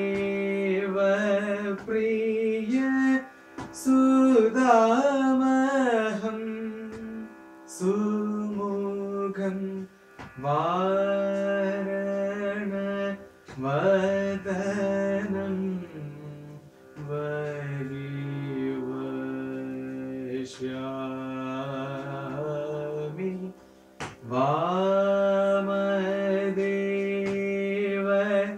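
A man singing a Carnatic composition solo in raga Salagam, Adi tala, in phrases with sliding, ornamented notes and long held notes, broken by short breaths.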